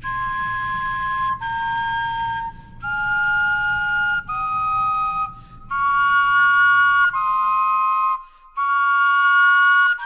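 Two carrot flutes playing a slow melody in two-part harmony. They play about seven held notes, each a second or so long with short breaks between, stepping down in pitch and then back up.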